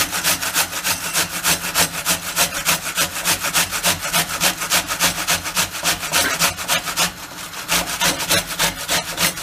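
An onion being grated on a stainless steel box grater: a steady run of rasping strokes, about three or four a second, with a short pause about seven seconds in.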